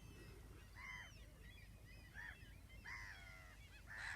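Faint honking calls of distant waterbirds: four harsh calls roughly a second apart, over a low steady rumble.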